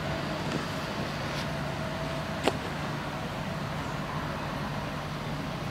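Steady outdoor background rumble with a low hum, with a single sharp click about two and a half seconds in.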